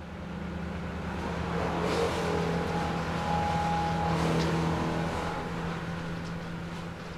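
A steady low drone with a few held higher tones above it, swelling in over the first two seconds and slowly fading.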